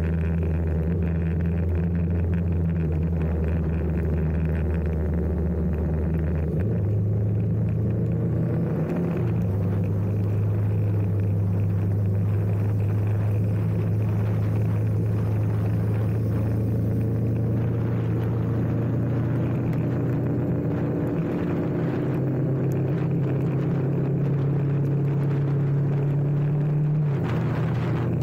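Honda CBR500R's parallel-twin engine running at steady cruising revs, its note stepping up or down in pitch a few times, about a quarter of the way in, again soon after, and twice more in the second half. Under it runs a steady hiss of wind and wet road.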